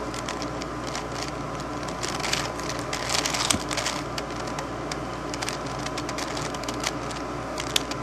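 Plastic layers of a 5x5x5 V-Cube being turned by hand: quick bursts of clicking and rattling, busiest about one to three and a half seconds in.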